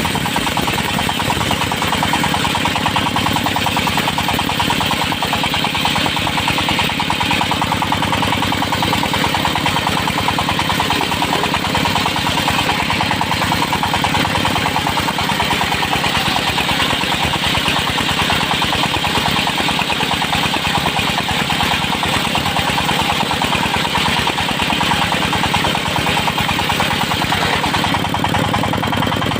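An engine-driven circular sawmill running steadily, its motor giving an even rapid pulse under a hissing upper band.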